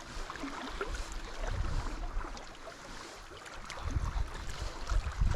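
Wind buffeting the microphone in gusts, with water lapping against a fishing boat on a choppy lake. The low rumble swells about a second and a half in, then again more strongly from about four seconds on.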